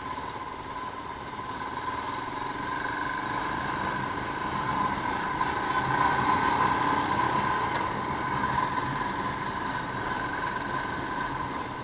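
Royal Enfield Himalayan's single-cylinder engine running as the motorcycle rides over rough dry ground. It grows louder through the middle and eases off near the end.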